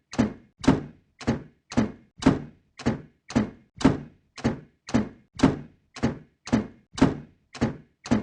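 Door slam sound effect: a heavy door shutting with a thud, repeated evenly about twice a second, each hit dying away quickly.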